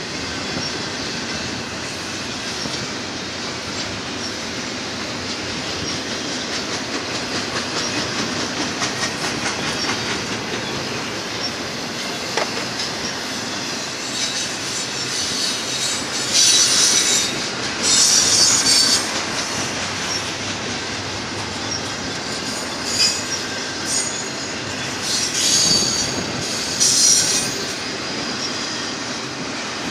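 Double-stack container cars of a Union Pacific freight train rolling past: a steady rumble of steel wheels on rail with rhythmic clicking over the rail joints. High-pitched wheel squeals come in several bursts in the second half, the loudest two just past the middle.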